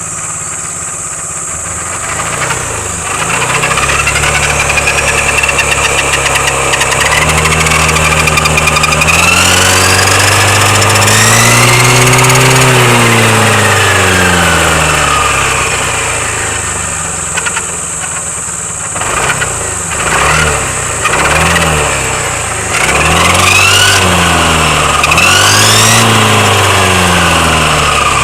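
Vehicle gear reducer droning under a running drivetrain: a low drone with a high whine above it, both rising and falling in pitch as the speed goes up and down. There is one long swell, then several shorter ones near the end. The droning is the reducer's fault.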